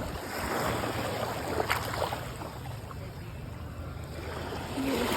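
Waves washing on the shore with wind on the microphone, a steady rushing noise with a couple of brief knocks about two seconds in.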